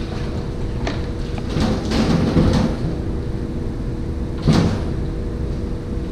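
Indoor fishing-pond room noise: a steady mechanical hum with a few scattered knocks and clatters, and one sharper knock about four and a half seconds in.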